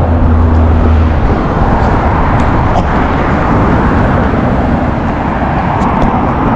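Loud, steady rush of wind over the microphone of a camera carried on a moving bicycle, mixed with car traffic passing on the road alongside; a vehicle's low hum fades out about a second in.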